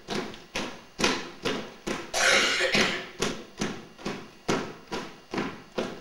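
A group of performers stamping in unison on a wooden stage floor, a steady beat of about two stamps a second ringing in the hall. About two seconds in, a loud breathy burst lasts under a second.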